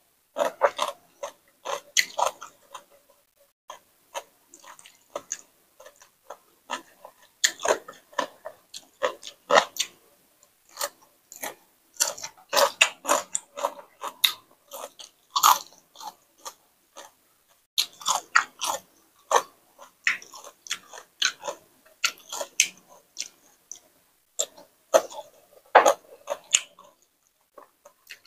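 Close-miked mouth sounds of someone eating a papaya salad and raw greens: irregular wet smacks and crunches, with short pauses between mouthfuls.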